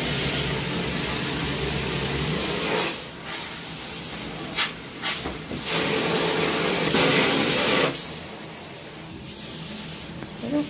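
Water spraying from a handheld shower head: a steady hiss that drops off and comes back several times, with a louder spell about seven seconds in.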